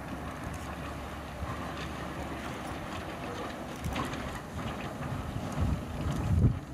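Wind buffeting the microphone outdoors: a steady rushing hiss with uneven low rumbling gusts, the strongest near the end.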